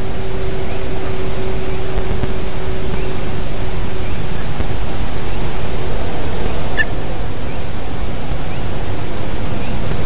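Steady loud rushing noise from an outdoor nest-camera microphone, with a steady low hum that fades out about six seconds in and two faint short chirps, one about a second and a half in and another about seven seconds in.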